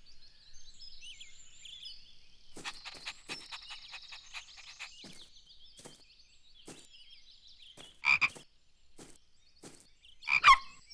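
Cartoon frog croaking: two short croaks about two seconds apart near the end, over faint high chirping and scattered light ticks.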